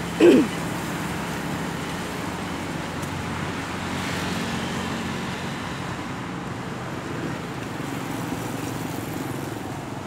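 Steady road-traffic noise, a continuous hiss of passing vehicles. A brief, loud sound falling in pitch comes right at the start.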